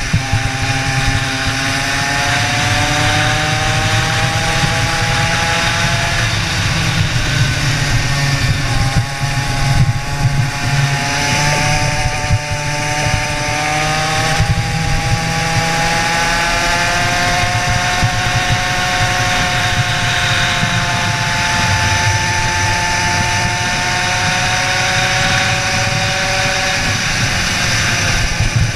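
Racing kart engine heard from on board at full race pace. Its pitch climbs steadily on each straight and drops back several times as the kart slows for corners.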